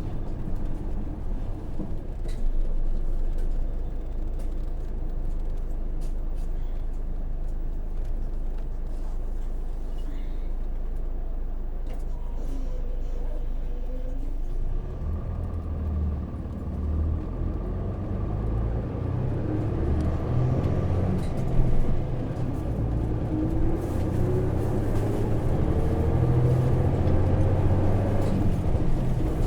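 Hino PJ-KV234L1 city bus heard from inside the cabin. Its 6HK1 six-cylinder diesel runs with a steady low hum for about the first half. About halfway through it grows louder, and its pitch rises more than once as the bus gathers speed.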